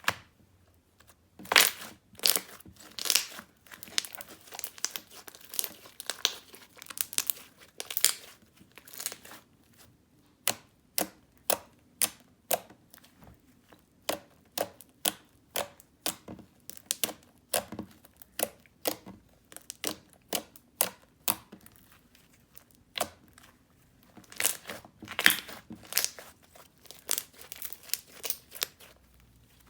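Shower-gel slime being kneaded and squeezed by hand: a run of sticky, wet clicks and pops, thickest near the start and again near the end.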